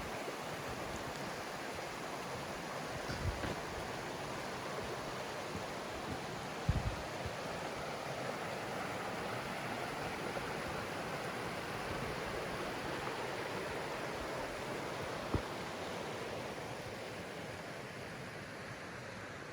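Mountain stream rushing steadily, with a few short low thumps.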